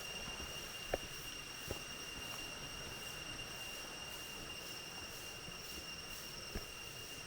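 Forest insects singing a steady high-pitched drone, with a few faint taps of footsteps on the trail.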